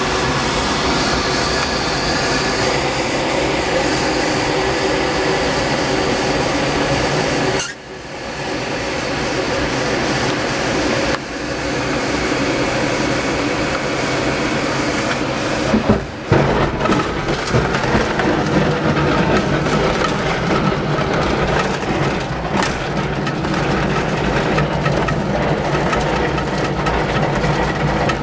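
Small aircraft rolling fast across a grass airfield: a steady rush of wind and the rumble of the wheel over the turf, seen from the cockpit. The noise dips briefly twice, and in the second half it turns uneven, with repeated knocks and bumps from the rough ground.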